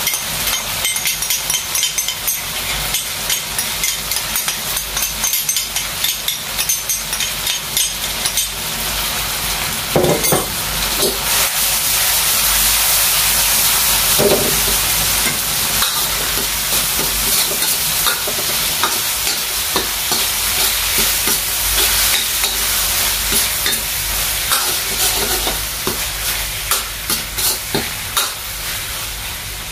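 Chicken, mushrooms and red bell pepper stir-frying in a hot wok, sizzling steadily with a freshly added sauce, while a metal ladle scrapes and clicks against the wok as the food is tossed and stirred.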